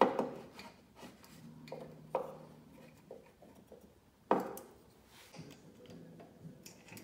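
Carburetor parts and gasket being handled on a Honda push-mower engine: a few sharp knocks, right at the start, about two seconds in and just past four seconds, with lighter clicks and rubbing between.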